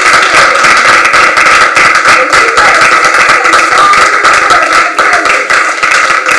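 Loud, rapid hand clapping: a dense, continuous run of claps.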